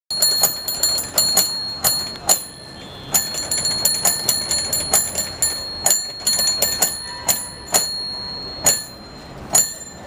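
A San Francisco cable car's conductor's bell rung about twenty times in a quick, syncopated rhythm. It is a high, bright ring that keeps sounding between strikes.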